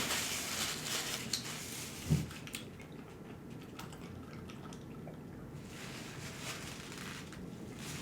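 Wet eating sounds from a saucy seafood boil: squishing and dripping as seafood is handled and chewed, with one short low thump about two seconds in.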